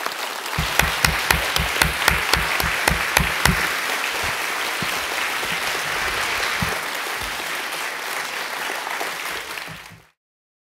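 Audience applauding. For the first few seconds, loud single claps close by stand out at about four a second. The applause cuts off suddenly near the end.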